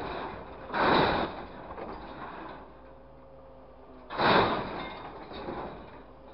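Scrap metal and wood crashing into a grapple truck's steel bed as its orange-peel grab drops and works a load. There are loud crashes about a second in and just after four seconds, a smaller one near the end, and rattling that dies away between them.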